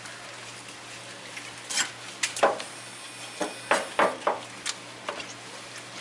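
Kitchen knife chopping red gurnard fillets on a plastic cutting board: about nine sharp knocks of the blade on the board, unevenly spaced, over a steady low hum.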